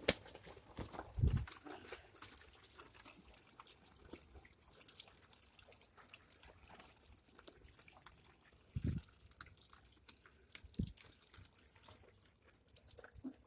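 Water trickling and dripping inside an LG front-load washer, fed by an inlet valve that keeps letting water in. Irregular small ticks, with three dull low thumps: about a second in, near nine seconds and near eleven seconds.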